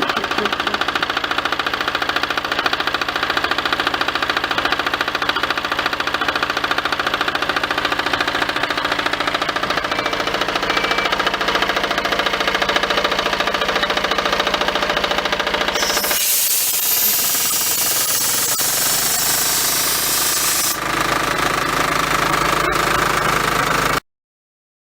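Diesel engine of an Airmec TTD motocompressor running steadily with a rapid knocking firing beat. About 16 seconds in, a loud hiss of rushing air joins it for about five seconds. The sound cuts off abruptly near the end.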